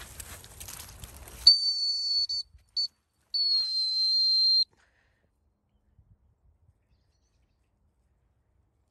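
Dog whistle blown three times in one high, shrill tone: a blast of about a second, a short pip, then a longer blast that sags slightly in pitch, calling the dogs back. Rustling outdoor noise fills the first second and a half and stops as the whistling starts.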